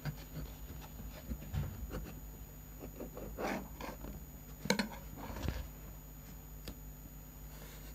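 Knife and fingers working a large pizza in an aluminium baking tray: faint scraping, rubbing and tearing, with a couple of sharp clicks a little past halfway and near the end.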